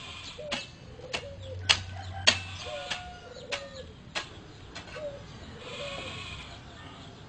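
Animal calls: short, sharp sounds repeated a little more than half a second apart, each followed by a brief low call that bends in pitch, with a longer call about six seconds in.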